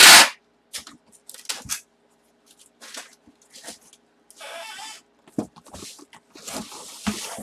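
Cardboard boxes being handled on a table. A loud, sharp noise comes right at the start, then scattered knocks, rustling and brief scraping.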